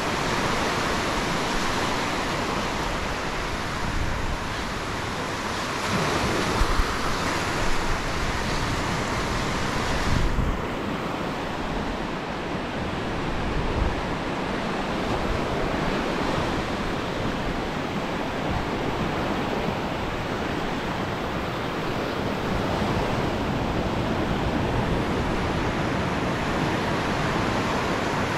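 Ocean surf breaking and washing up a sandy beach, a steady rush of water. Wind rumbles on the microphone now and then, most around six to ten seconds in.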